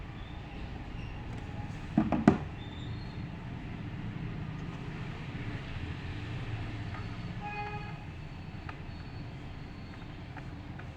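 Steady low background rumble with a sharp clatter of two knocks about two seconds in.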